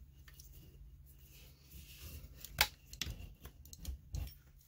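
Handling noise from a J4 Torque paintball marker's body and grip frame being fitted together: faint rubbing, then a sharp click a little past halfway and a few lighter knocks.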